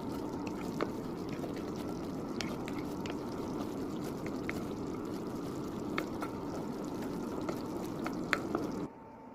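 Spoon stirring a thick, hot mixture of melted butter, honey, sugar and cocoa in a heavy-bottomed pot: a steady low rush with scattered light clicks of the spoon against the pot, cutting off abruptly near the end.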